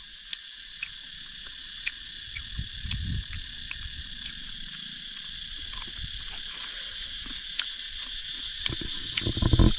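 Steady high-pitched chirring of an insect chorus, unbroken throughout. Scattered sharp clicks and a few low thumps run over it, the loudest thumps near the end.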